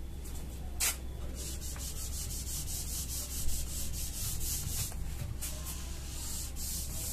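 Whiteboard duster rubbed back and forth over a whiteboard, wiping off marker writing in quick repeated strokes, about three or four a second.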